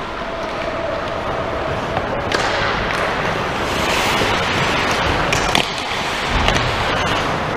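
Ice hockey play in an arena: skate blades scraping the ice under a steady rushing noise, with a few sharp stick-and-puck clacks a little past halfway.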